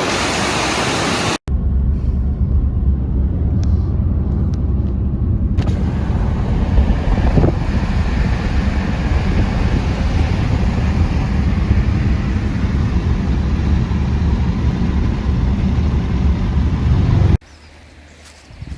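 Rushing water cuts off suddenly about a second and a half in. A steady low rumble with a fainter hiss above it follows, then stops abruptly near the end.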